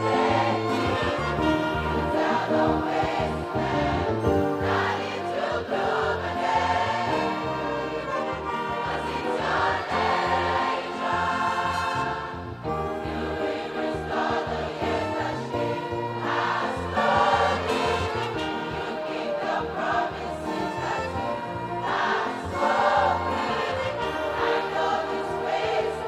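Youth choir singing a gospel worship song in full harmony, with an orchestra of violins and brass accompanying.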